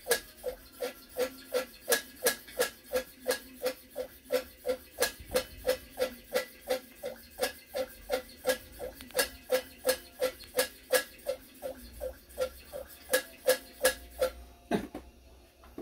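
Hand air pump of a kerosene pressure lantern, whose fuel tank is a converted 2-liter fire extinguisher, stroked quickly and evenly at about three strokes a second. Each stroke is a short, sharp click. It is building tank pressure to about 1 bar. The pumping stops about a second before the end with a single knock.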